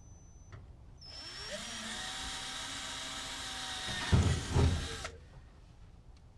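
Power drill spinning up with a short rising whine and drilling into a truck-bed toolbox for about four seconds, with a few heavy knocks near the end before it stops.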